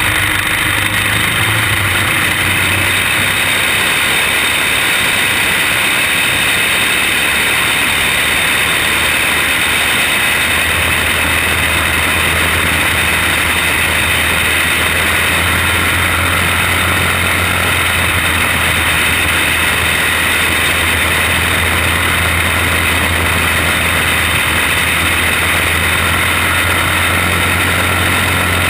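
Quarter midget race car's small single-cylinder engine running flat out, heard from on board as a loud, steady drone; its low hum grows stronger about ten seconds in and holds.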